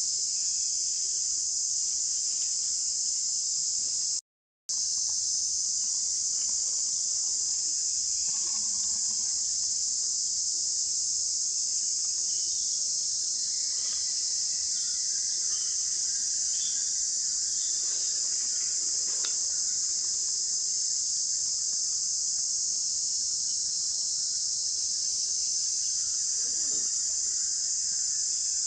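Steady, high-pitched drone of a tropical insect chorus, cutting out completely for a moment about four seconds in.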